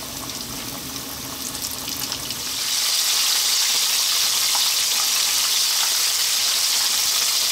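Cornflour-coated chicken wings deep-frying in medium-hot oil in a wok: a steady sizzle and crackle of bubbling oil, which gets noticeably louder about two and a half seconds in.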